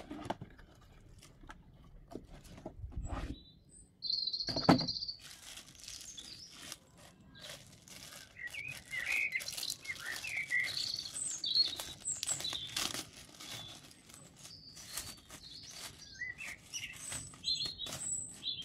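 Plastic packaging and a cardboard box rustling and crinkling as an inflatable ring is unpacked, with one louder knock about five seconds in. Small birds chirp and tweet throughout.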